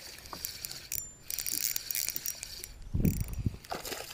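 Spinning reel being cranked, its mechanism and drag ticking, as a hooked fish is reeled in. About three seconds in, the fish splashes at the surface beside the boat.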